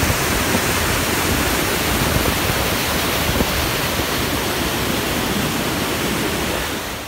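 River rapids: whitewater rushing over and around boulders, a steady, loud rush of water that fades out at the very end.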